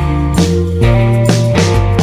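Instrumental background music with a steady beat of about two strokes a second.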